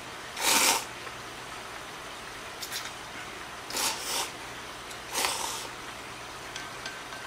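A person slurping cold hiyashi chuka ramen noodles. There are three slurps, the loudest about half a second in and the others near four and five seconds in, with a short faint one in between.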